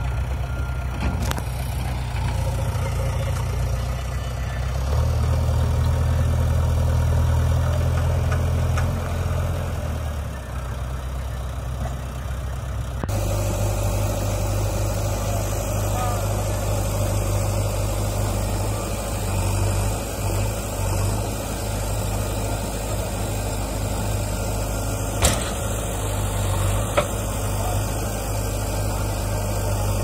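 JCB 3DX backhoe loader's diesel engine running at close range, a steady low hum that grows louder for a few seconds about five seconds in and changes its note abruptly about thirteen seconds in. Two sharp knocks come late on, a couple of seconds apart.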